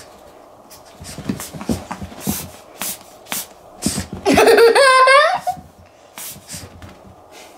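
Short scratchy strokes of a grooming brush through a Pomeranian's long fur. About four seconds in there is a loud squeal lasting a little over a second.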